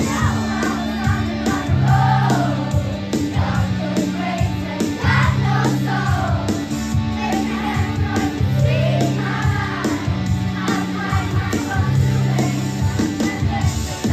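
Rock song with several voices singing together over a steady drum beat and a bass line that alternates between two long held notes.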